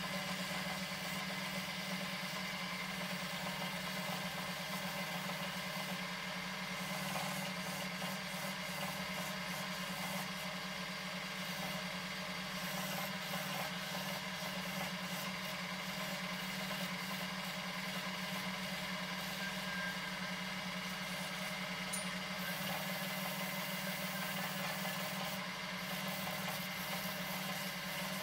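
Handheld rotary tool with a sanding drum running at a steady speed, sanding wooden tank-track links: an even motor hum with the rasp of the drum rubbing on the wood.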